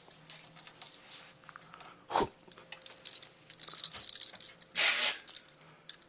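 Small metal nail clipper clicking and rattling as it is caught and fiddled with in the hand, with a single thump about two seconds in and dense jangling over the second half.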